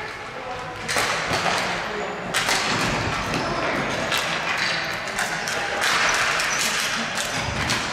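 Ball hockey in play: many sharp clacks and knocks of sticks and the ball on the floor and boards, under players' shouting voices.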